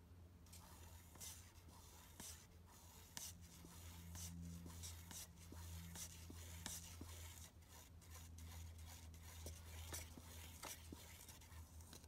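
Faint scraping and light irregular knocks of a wooden stir stick stirring varnish in a metal can, over a low steady hum.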